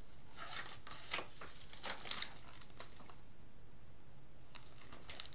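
Paper rustling and crackling as the pages of a picture book are turned and handled, in a quick run of short rustles with a few fainter ones near the end.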